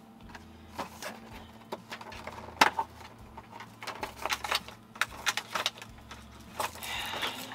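Scattered clicks, taps and rustles of small objects being handled and moved about, with one sharp knock about two and a half seconds in and a brief rustle near the end.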